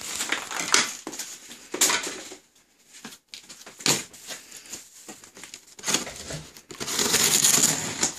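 Cardboard shipping box being unpacked: plastic packing straps pulled off and the box scraped and shifted, in short scrapes and knocks, then steadier crinkling and rustling near the end.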